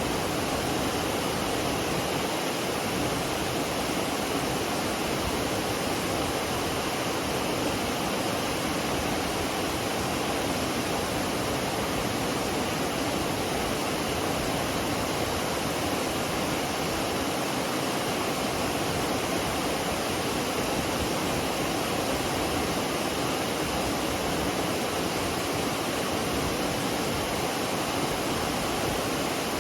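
Waterfall on the McCloud River, falling water rushing steadily without a break.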